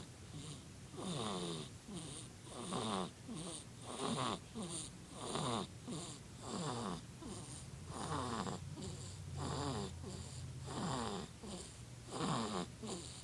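Snoring in a steady rhythm, about one snore every second and a half, each falling in pitch.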